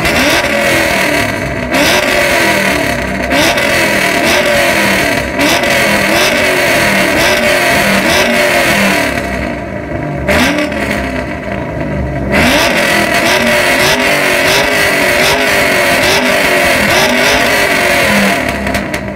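Car engine with a loud performance exhaust being revved over and over in quick blips, more than one a second, in two long runs with a brief lull between.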